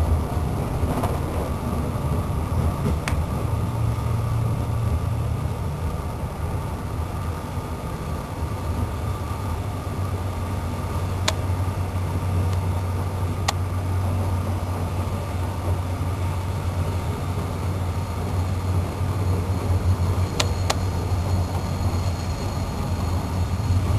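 Running noise of a moving train heard from inside the carriage: a steady low rumble and hum, with a few sharp single clicks.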